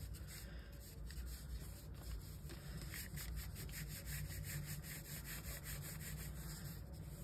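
Fingers rolling a thin coil of air-dry clay back and forth on kraft paper: a rhythmic rubbing and scuffing of skin and clay against paper. The strokes come faster and closer together in the second half.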